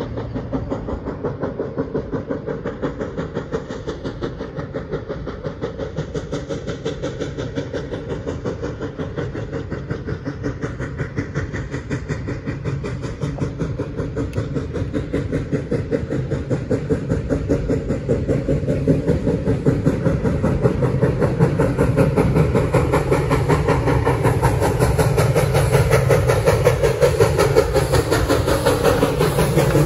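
2-8-0 steam locomotive No. 3716 working hard up a 2.2% grade, its exhaust beating in a rapid, even rhythm with steam hiss. It grows steadily louder as it approaches over the second half.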